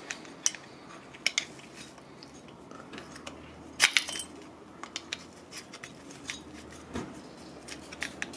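Steel screwdriver clinking and scraping against a chrome Harley-Davidson pushrod tube and its collar as the tube is pried to reseat its seal: scattered sharp metal clicks, loudest in a cluster about four seconds in.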